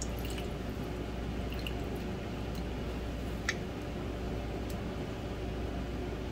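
Lemons being juiced, with wet squishing and juice dripping over a steady low hum, and a few small clicks, the sharpest about three and a half seconds in.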